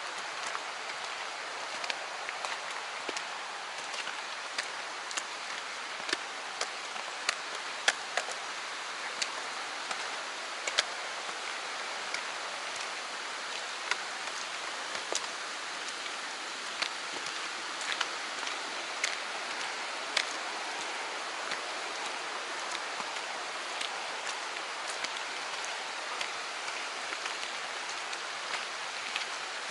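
Steady rush of running water with scattered, irregular sharp ticks throughout.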